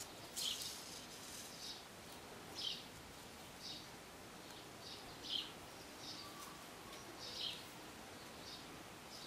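Faint crinkly rustles of paper yarn being drawn through crocheted stitches with a needle, short and high, coming about once a second over a low steady hiss.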